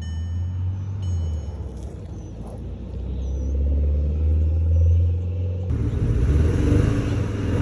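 2012 Audi TT engine running with an active misfire, logged as a random and cylinder 4 misfire (P0300, P0304). About five and a half seconds in it gets suddenly louder and fuller.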